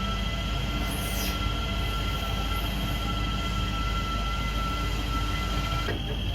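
A steady mechanical rumble with several high, unchanging whining tones held throughout.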